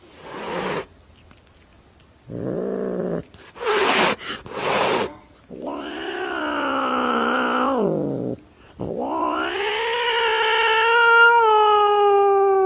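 A cat yowling: two long, drawn-out wails, the second lasting over four seconds and sliding down at its end, after a few short hissing bursts.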